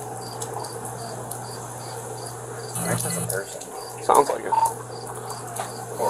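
Cricket chirping steadily, short high pips about two and a half times a second, over a low steady hum. A brief rustle comes about three seconds in, and a short burst of voice just after four seconds.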